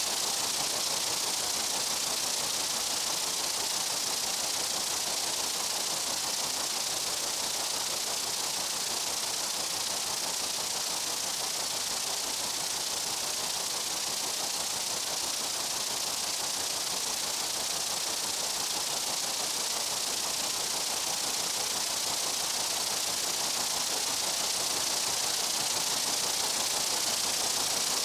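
Insect buzzing in a summer meadow: a steady, high-pitched hiss-like drone with no single call standing out.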